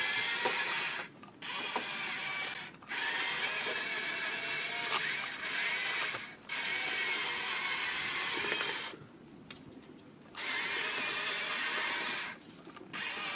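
Remote-control toy tank running, its small electric drive motors and gearbox whirring as it moves over dirt. It stops and restarts several times, with one longer pause of about a second and a half midway.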